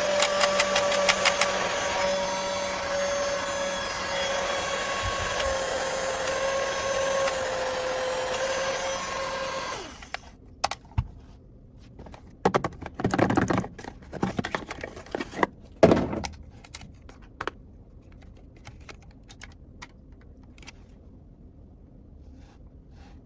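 A small battery-powered motor whirring with a steady hum, cutting off suddenly about ten seconds in. After it come scattered light clicks and short rustles, as of plastic toy pieces being handled.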